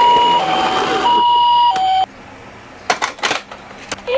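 Toy ambulance's electronic two-tone siren, high and low notes alternating about every half-second, cutting off about two seconds in. A few sharp clicks follow, and near the end a wailing siren starts, rising in pitch.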